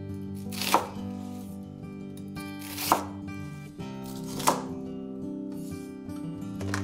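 Kitchen knife cutting through onion and then green beans on a wooden cutting board: three separate strokes, each building briefly and ending in a sharp knock of the blade on the board, with a few lighter taps near the end. Soft background music plays underneath.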